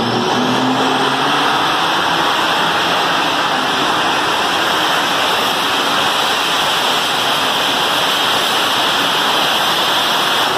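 Small modified pulling tractor's engine at full throttle as it drags a weight-transfer sled down the track: loud, steady, harsh engine noise with no clear pitch, continuing until the sled reaches the far end.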